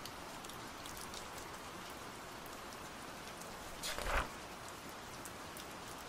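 Steady rain falling: an even hiss with scattered ticks of drops. About four seconds in there is one brief, louder swell.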